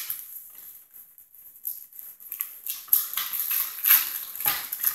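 Wrapping paper rustling and tearing as a present is unwrapped, faint at first and louder from about three seconds in, with a few light clicks near the end.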